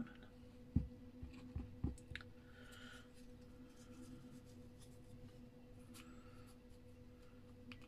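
Faint handling sounds of paper collage work: a few soft knocks in the first two seconds, then light rustling as a piece of crumpled paper is glued and pressed onto a plaster-coated canvas, over a steady low hum.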